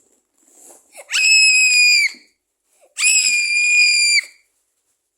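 Two loud, very high-pitched shrieks, each held at a steady pitch for about a second, the first about a second in and the second about three seconds in.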